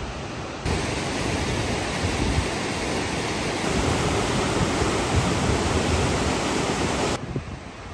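Steady rushing noise that cuts in abruptly under a second in and stops abruptly about seven seconds in.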